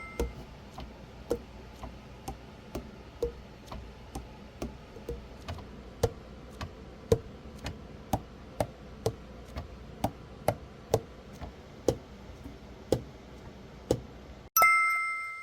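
Metal keys of a Strasser Marigaux alto saxophone being worked, the pads tapping shut on the tone holes in sharp clacks about twice a second. Each clack has a short pitch that changes from one to the next.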